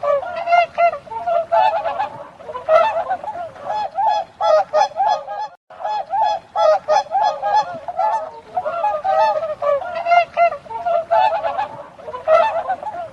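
Swans honking: a run of short, repeated honks that overlap one another, with a brief break about halfway through.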